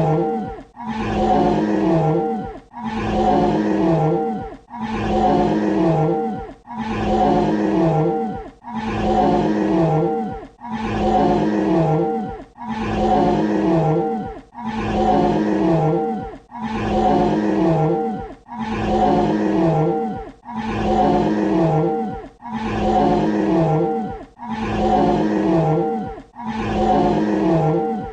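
Dinosaur roar sound effect played on a loop: the same short, growling roar repeats about every two seconds with a brief gap between repeats, each one dropping in pitch near its end.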